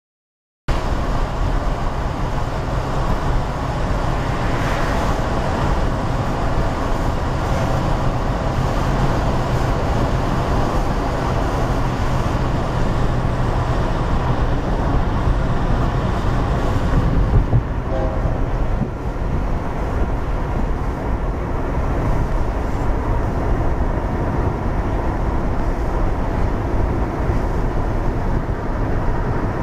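Steady road and engine noise of a moving car, heard from inside the cabin with a strong low rumble, starting abruptly under a second in.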